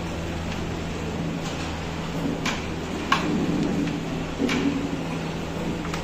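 Carrom striker shot into the coins: a sharp click about three seconds in, with lighter clicks of the striker and coins on the wooden board before and after. A murmur of low voices and a steady low hum run underneath.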